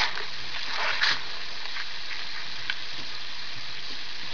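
Steady hiss of a home recording's background noise in a pause between spoken sentences, with a faint click about a second in and another near the end of the third second.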